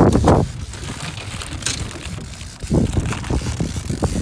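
Wind buffeting the microphone in rough, low rumbling gusts, strongest at the start and again about three seconds in.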